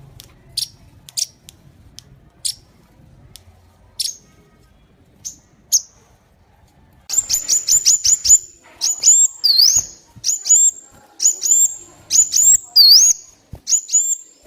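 Sunbird calling: single sharp, high, falling chips every half second or so, then from about seven seconds in a louder, fast song of rapid chips and twittering phrases with a few swooping notes.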